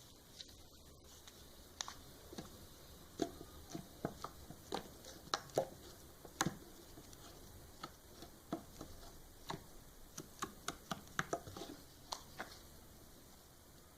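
Slime being squeezed and pressed by hand, making irregular wet clicks and pops.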